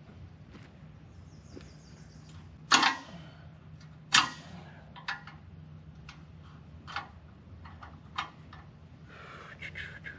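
Sharp knocks and clanks, loudest twice about three and four seconds in, then several lighter ones, over a steady low engine hum.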